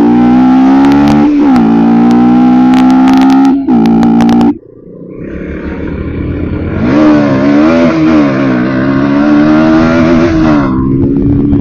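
Bajaj Pulsar NS160's single-cylinder engine revving hard, fitted with an aftermarket air filter that changes its sound. The revs hold high, drop sharply about four and a half seconds in, then climb back and rise and fall with the throttle.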